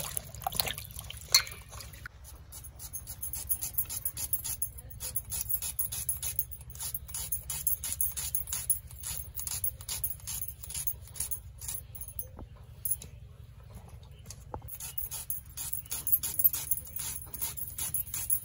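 Kitchen scissors snipping through raw onion in a quick run of crisp clicks, over a low steady hum.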